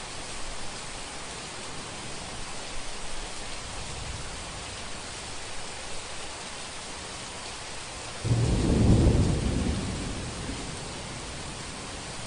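Steady heavy rain hiss, with a thunderclap that breaks in suddenly about eight seconds in and rumbles away over the next two or three seconds.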